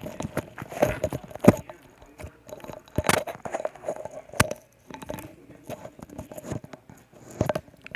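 Slime being squeezed and worked by hands close to the microphone: irregular sticky crackles and clicks, with a few sharper pops about three and four and a half seconds in.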